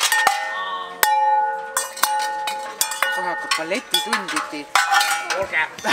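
Metal objects being struck to make a deliberate racket. Two sharp clangs, one at the start and one about a second in, each leave long ringing tones, followed by a jumble of rapid clanking strikes.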